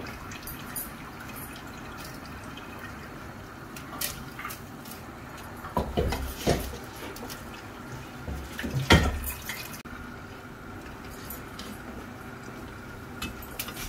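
Rice cooking in spiced water in a pot, a steady bubbling, with a few knocks of a metal slotted spoon against the pot, the loudest about nine seconds in.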